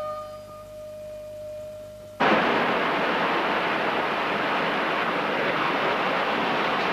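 A soft held woodwind note from the title music, cut off about two seconds in by a loud, steady rushing noise that starts suddenly and carries on.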